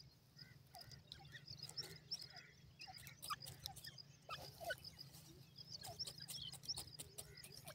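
Francolin dust-bathing and digging in dry soil: soft scratching and scattering of dirt with many small clicks, over a faint steady hum.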